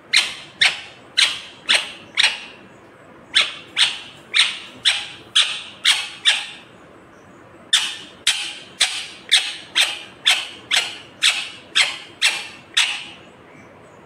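Indian ringneck parakeet screeching: short, sharp calls about two a second, in three bouts with brief pauses between.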